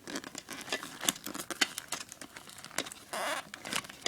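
Hands fiddling with plastic packaging and the iPod touch's loop wrist strap: scattered small clicks and crinkles, with a short rustle a little after three seconds in.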